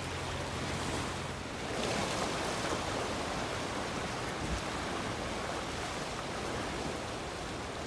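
Sea surf washing steadily, a continuous rushing noise that swells a little about two seconds in.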